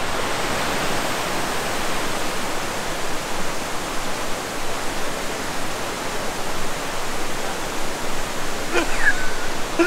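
Steady rushing of creek rapids and cascades far below, with a short sharper sound about nine seconds in.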